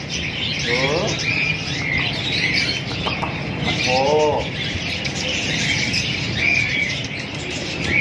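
Many caged birds chirping and twittering without a break, with two short lower calls, about a second in and about four seconds in.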